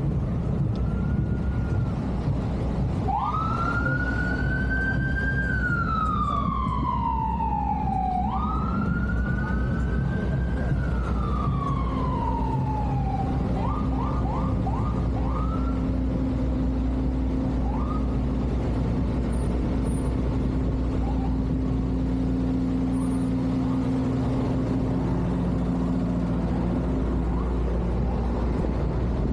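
Emergency vehicle siren wailing twice, each wail rising sharply and then falling slowly, followed by a few short quick yelps about halfway through, over a steady low rumble of city traffic.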